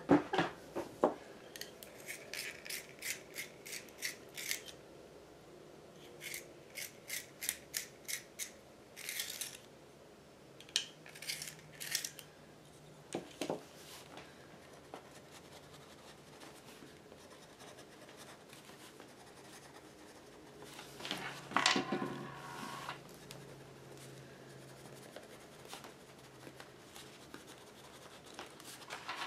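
Stabilo All charcoal pencil writing on a mixed-media journal page: runs of short strokes at about four a second, in bursts with pauses. A louder burst of handling noise comes about twenty-one seconds in.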